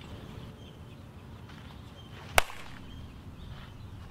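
A softball bat strikes a pitched softball once, a single sharp crack about two and a half seconds in, over a steady low background noise.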